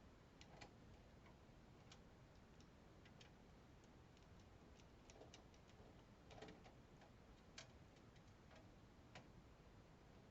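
Near silence with faint, irregular small clicks and taps, a few louder ones about a second apart near the middle.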